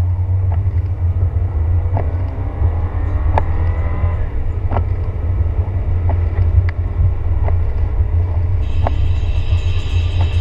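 Inside a car's cabin driving on a rain-soaked road: a steady low engine and tyre rumble, with scattered sharp ticks every second or two.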